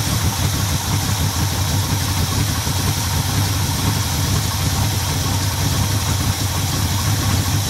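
1971 Oldsmobile Cutlass SX's big-block V8, fitted with a new Edelbrock Performer intake and 750 cfm Edelbrock carburetor, idling steadily.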